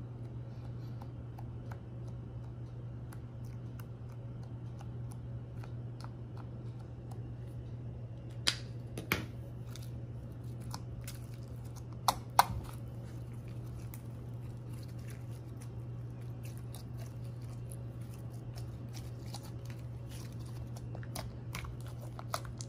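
White slime being pressed and kneaded by hand, making scattered wet clicks and pops; a few louder snaps about halfway through. A steady low hum runs underneath.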